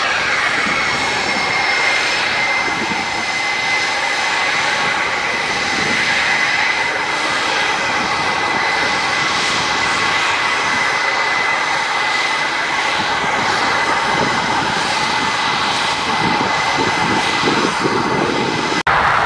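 Saab Gripen F-39 fighter jet engines running steadily on the runway: a dense, even jet noise under a high, steady whine. The sound drops out for an instant near the end.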